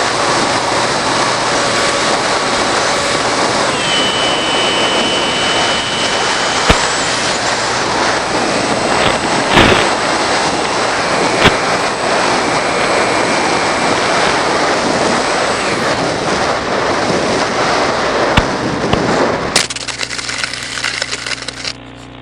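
Onboard audio from a radio-controlled FPV airplane in flight, carried over the video link: a loud, steady rush of noise with faint high whines that step in pitch, and a few sharp clicks. Near the end the rush gives way to a low hum with crackles, then drops sharply.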